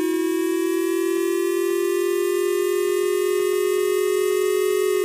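Emergency-alert siren wailing: one loud, steady tone with many overtones, slowly rising in pitch and beginning to fall right at the end.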